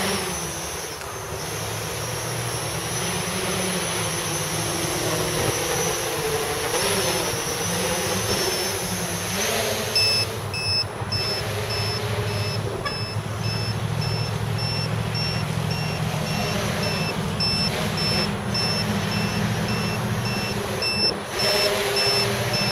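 Quadcopter's brushless motors and propellers whining, the pitch rising and falling with the throttle as it lifts off and climbs. About ten seconds in, a steady string of short high electronic beeps starts and keeps going: a low-battery alarm, the battery sagging under load.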